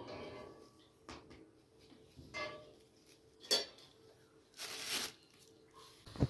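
Dry flatbread being torn and broken by hand, with crisp crackling and rustling in several short spells as the pieces are dropped into steel bowls.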